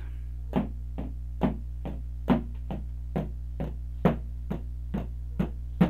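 A musical instrument plays a steady run of short, evenly spaced notes, a little over two a second, sounding out a pattern of paired eighth notes in 2/4 time for rhythm reading. A steady low electrical hum lies underneath.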